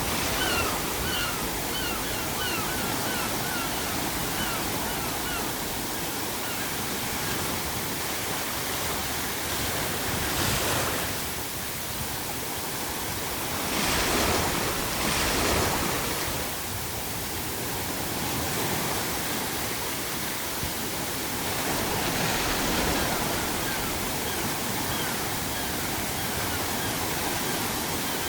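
Ocean surf washing steadily, with several louder waves breaking in the middle. A seagull calls in a quick series of short repeated notes over the first few seconds, and again faintly near the end.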